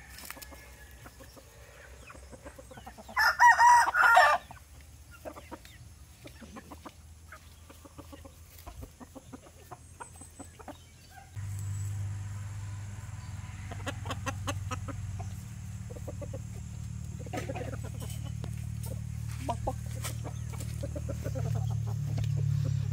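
A rooster crows once, loudly, about three seconds in, a call of a little over a second. From about halfway through, a steady low hum sets in and runs on under faint scattered clucks.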